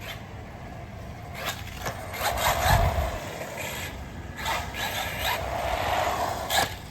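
Arrma Typhon Grom RC buggy on swapped-on Temu-car tyres being driven in short bursts, its tyres and drivetrain rasping over the ground, loudest about three seconds in. The motor is cogging on take-off, which the driver hears as a fault that persists.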